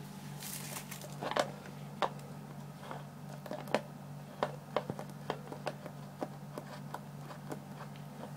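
Shetland sheepdog puppy eating from a plastic bowl: irregular clicks and taps, coming a few a second through the middle, over a steady low hum.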